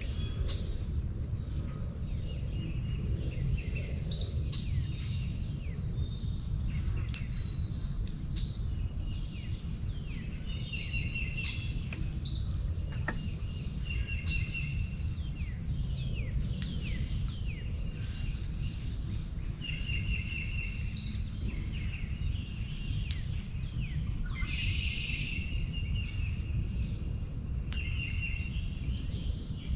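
Swamp chorus of birds chirping and insects trilling. Three times, roughly eight seconds apart, a louder call swells for about a second and cuts off sharply. A steady low rumble runs underneath.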